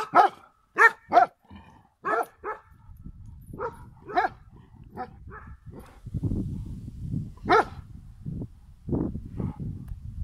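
Dog barking repeatedly: short, sharp barks in quick runs, loudest in the first couple of seconds and again later. A low, noisy rumble sits under the barks in the second half.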